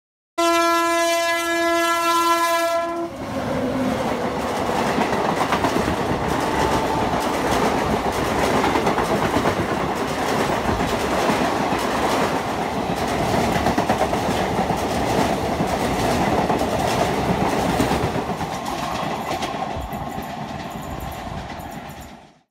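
Passenger train passing at speed. Its horn sounds first, one steady chord lasting about two and a half seconds. Then the coaches' wheels clatter over the rail joints in a loud rush, easing off near the end.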